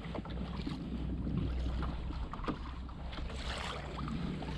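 Water lapping against a plastic kayak hull, with a steady low wind rumble on the microphone and a few small knocks.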